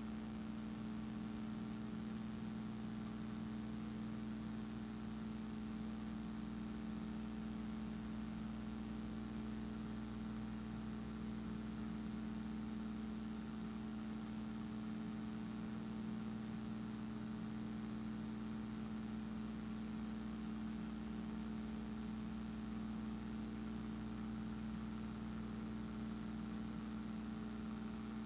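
A steady, unchanging motor hum with a strong low drone; no other sound.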